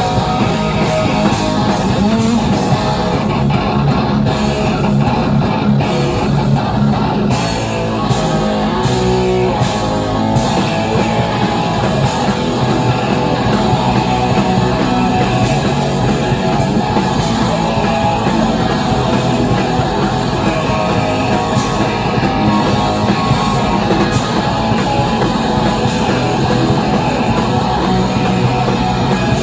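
Live heavy rock band playing loudly: distorted electric guitar over a drum kit, the sound dense and unbroken throughout.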